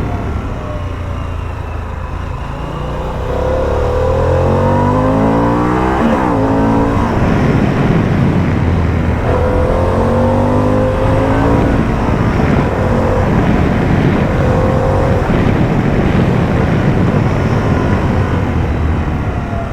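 Harley-Davidson Pan America's Revolution Max 1250 V-twin engine accelerating while riding. Its pitch climbs, drops at a gear change about six seconds in, then climbs again through further shifts, over steady wind and road noise.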